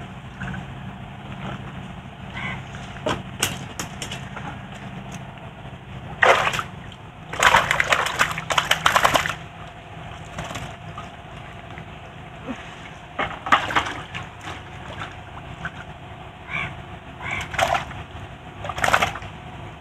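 Water splashing and sloshing in a tub as a fine-mesh net holding fish fry is worked by hand. It comes in several bursts, the longest about seven to nine seconds in.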